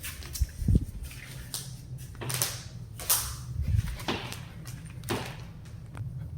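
A series of short, irregular knocks and clicks over a low steady hum.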